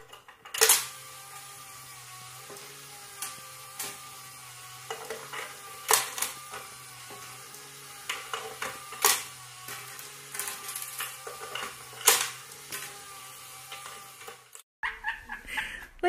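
Coins clinking against a metal skeleton coin-bank toy as a parrot handles them: a sharp clink every three seconds or so, with lighter clicks between, over a steady low hum.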